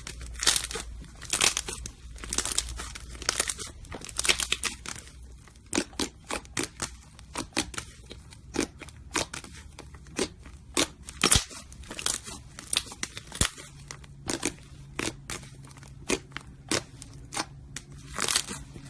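Slime being squeezed and worked by hand, giving a fast, irregular run of sharp clicks, pops and short crackling spells.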